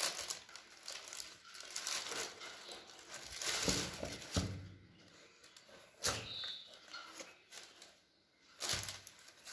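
White tissue paper crinkling and rustling in a cardboard shoebox as a pair of running shoes is lifted and handled, in irregular bursts. A sharp knock comes about four seconds in.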